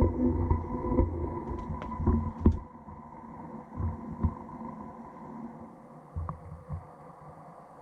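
Feiyu G6 gimbal motors heard through a GoPro Hero 7's built-in microphone: a steady electrical hum of several held tones. Irregular low thumps run under it, dense in the first couple of seconds, with the loudest about two and a half seconds in.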